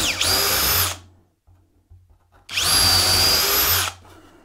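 Cordless drill boring pilot holes into spruce. One run ends about a second in. A second run starts about two and a half seconds in, whines up to speed, holds steady for about a second and a half, then stops.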